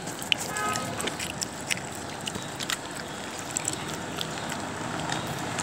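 Stray dogs jumping up and scrabbling at close range: scattered clicks and scuffs, with a brief high whine about half a second in, over steady street noise.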